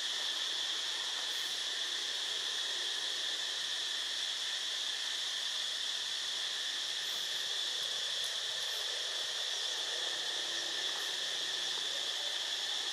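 Steady, high-pitched insect chorus, a continuous drone with no breaks.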